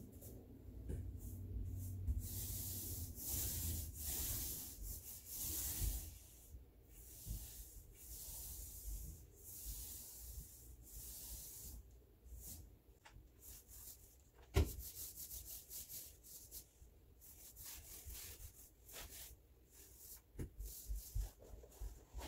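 Hand sanding of a wooden cabinet face frame: repeated back-and-forth rubbing strokes, about one a second, strongest in the first half and fainter later. One sharp knock about two-thirds through.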